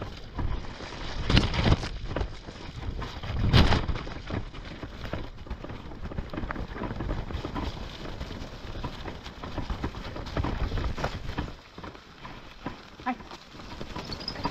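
Mountainboard wheels rolling over a rough, wet dirt trail: a steady rumble and rattle with scattered knocks, and two louder bursts about one and a half and three and a half seconds in.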